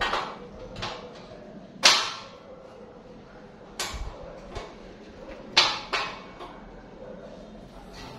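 Sharp clacks and knocks from work at a laminated-glass cutting machine, about seven in all, with the loudest about two seconds in and a close pair near six seconds.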